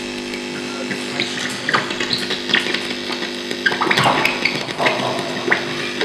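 Home-made light-to-sound noise instrument: three CDs stuck together with a laser pen shone into the middle, its flickering light turned into sound. It gives a steady electrical hum with scratchy, chirpy crackles and clicks on top, busiest a few seconds in, played back through the room's speakers.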